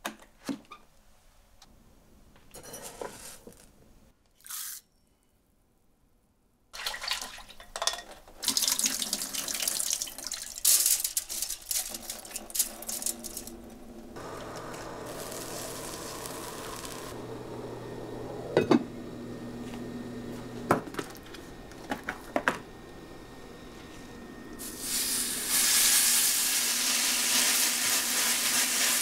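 Water from a kitchen tap running into the sink as rice is rinsed in a stainless steel mesh strainer, with knocks of metal and dishes. Near the end, marinated beef bulgogi starts sizzling loudly in a hot pan as it is stirred with chopsticks.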